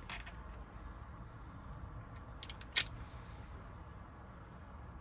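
Small metal lock parts being handled while a Honda door lock cylinder is rekeyed: a few light clicks about halfway through, one sharper click, then a brief rustle, over a low steady hum.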